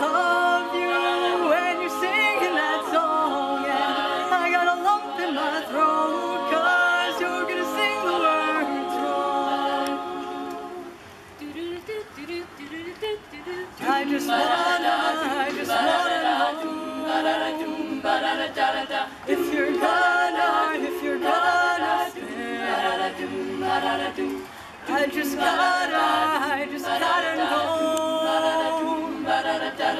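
An a cappella vocal group singing, several voices together in harmony. About eleven seconds in, the singing drops to a quieter, thinner passage for a few seconds, then the full group comes back in.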